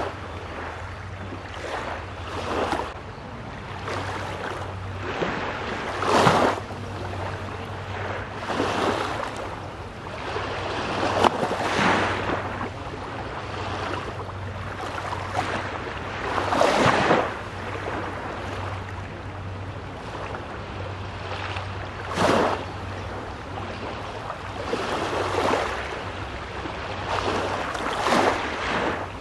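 Baltic Sea waves washing onto the shore, surging every few seconds at uneven intervals, over a steady low hum.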